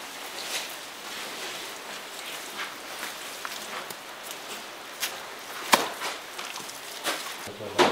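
Wet mud plaster being slapped and pressed by hand onto bamboo shelving: a scatter of soft slaps and knocks, with a sharp knock a little after halfway and a cluster of knocks at the end. Footsteps shuffle on a straw-covered floor.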